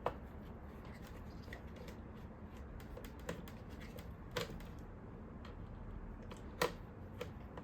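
Scattered light clicks and taps of a precision screwdriver and hard plastic parts as an iRobot Roomba's screws are worked loose, a few sharp ticks a second or more apart.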